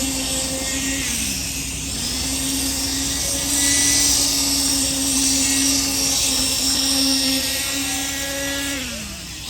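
A motor-driven machine running steadily at one pitch, with a high hiss over it. Its pitch sags briefly about a second in and again near the end, as if it were bogging under load, before it picks back up.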